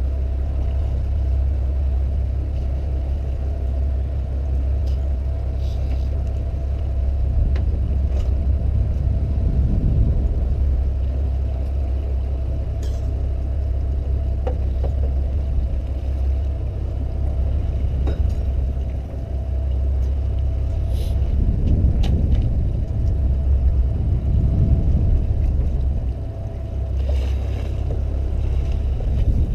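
Fishing boat's engine running steadily: a low rumble with a faint steady whine above it and a few light ticks.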